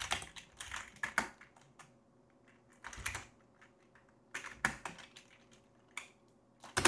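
Typing on a computer keyboard: several short runs of quick keystrokes with pauses of about a second between them.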